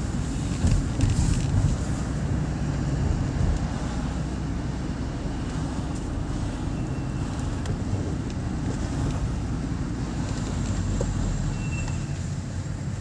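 Car cabin road noise while driving slowly: a steady low rumble of engine and tyres heard from inside the car, with a few light knocks in the first couple of seconds.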